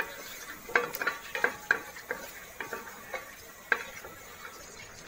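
A spatula stirring whole spices (cinnamon, bay leaves, cardamom, peppercorns, cloves) frying in hot ghee and oil in a metal frying pan. Irregular clicks and taps against the pan sound over a faint sizzle. They are busiest in the first two seconds and stop a little over a second before the end.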